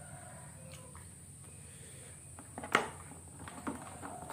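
Cooked mangrove clam shells clicking against each other and the plastic container as they are handled and picked through. There is one sharp click about two-thirds of the way in, then a few lighter taps.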